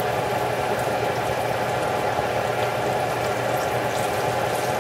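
Flour-and-cornmeal-breaded zucchini slices frying in hot oil: a steady sizzle with a few faint crackles.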